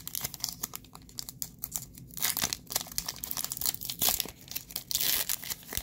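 Foil wrapper of a Pokémon booster pack being torn open and crinkled by hand: a dense stream of sharp crinkles and crackles, with a longer tearing rasp about five seconds in.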